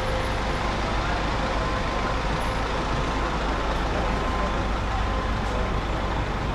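Steady street noise dominated by a continuous low rumble from a road vehicle's engine running nearby.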